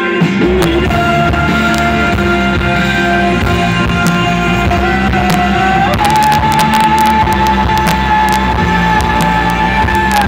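Live rock band playing an instrumental passage: a long held lead melody over bass and drums, with cymbal strokes coming in thicker about six seconds in.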